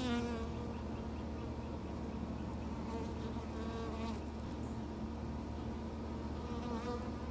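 Honey bees buzzing: a steady hum with a few louder, wavering buzzes rising over it, at the very start, around three to four seconds in, and again near the end.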